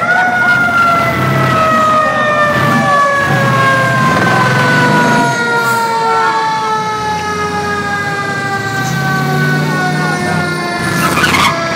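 Fire truck siren sounding one long wail whose pitch falls slowly throughout.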